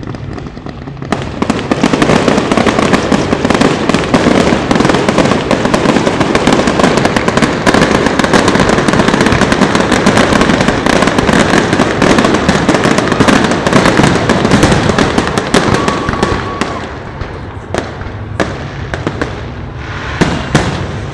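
Fireworks going off in a dense, rapid crackling barrage that builds up about a second in, then thins to scattered separate bangs near the end.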